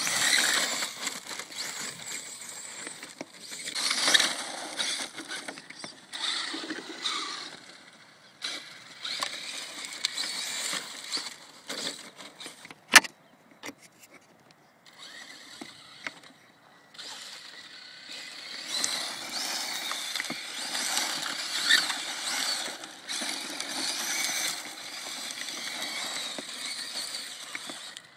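Kyosho DRX RC rally car's brushless electric motor whining in repeated bursts of acceleration and easing off as the car runs over loose dirt. A single sharp knock comes about halfway through.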